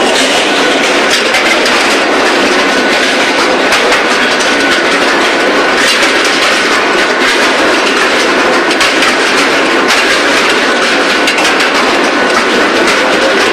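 Automatic induction billet-heating line for forging running: a steady mechanical din with frequent clanks and knocks, over a thin, steady high tone.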